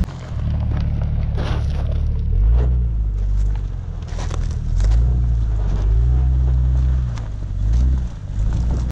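Jeep's engine revving up and down several times while crawling over rock, with scattered knocks and crunches.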